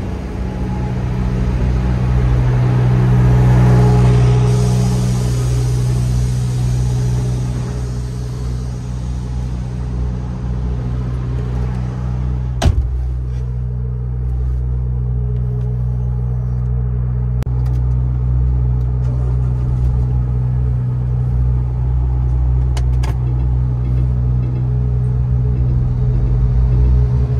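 MAN TGX truck engine running with a steady low drone, swelling with a rushing noise for a few seconds near the start. A single sharp click about halfway through.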